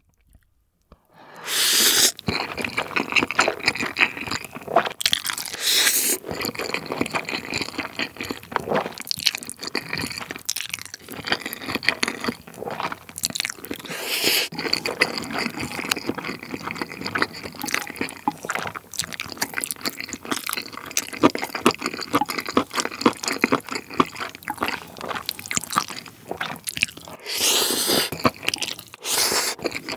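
Close-miked eating of saucy jjapaghetti with seafood: wet slurping of noodles and chewing with the mouth full. It starts after about a second and a half of silence, with loud slurps about two seconds in, around six and fourteen seconds, and near the end.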